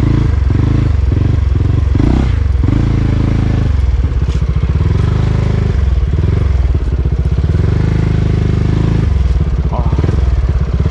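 Honda ADV350 scooter's single-cylinder engine running under way over rough ground, its note shifting up and down with the throttle.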